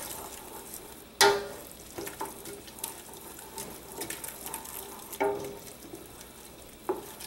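Chopped onion, garlic and anchovy fillets sizzling in olive oil in a stainless steel pot, stirred with a wooden spoon that knocks against the pot a few times. The loudest knock comes about a second in and rings briefly.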